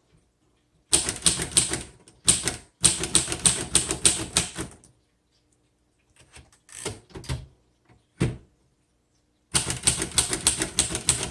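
Keys of a 1936 Royal Model O manual portable typewriter being typed, type bars striking the paper in quick runs of clicks. A run starts about a second in and lasts a few seconds, a few lone strikes follow, and another fast run starts near the end.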